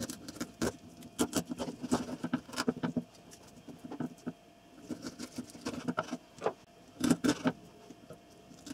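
Kitchen knife cutting up pieces of carp on a wooden cutting board: irregular crunchy clicks and scrapes as the blade goes through skin and small bones and knocks on the board. They come in two spells with a short pause about midway.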